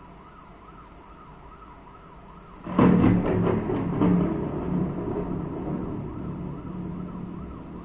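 A close thunderclap about three seconds in: a sharp crack and a few further cracks, rolling into a long, slowly fading rumble. Under it, a faint siren rises and falls steadily throughout.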